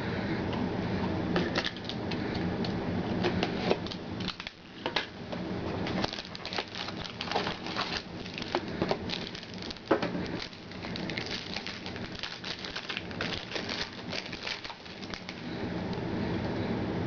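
Trading cards being handled and flipped through, with crisp clicks and rustling of card stock and wrapper, over a steady low hum.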